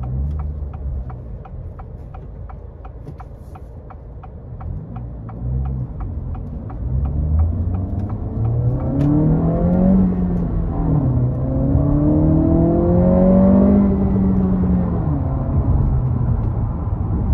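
A 2023 Acura Integra A-Spec's turbocharged 1.5-litre four-cylinder heard from inside the cabin while accelerating on the six-speed manual. The engine note rises, drops at a gear change about ten seconds in, rises again, then eases off. Over the first several seconds a light, regular ticking comes about three times a second.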